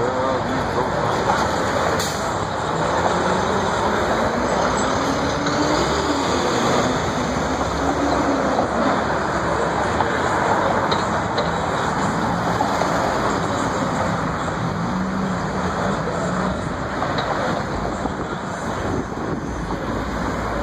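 City street traffic: cars driving past close by, a steady rush of road noise.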